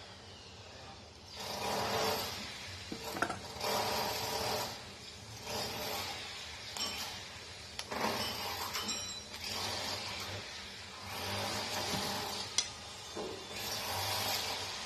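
Chestnut shells being cut and peeled off with a small knife: irregular rasping and cracking every second or two, with a sharp click about three seconds in and a louder one near the end.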